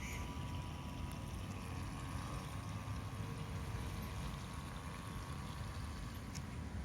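Wind buffeting the microphone: a steady low rumble, with a faint thin whistle held underneath.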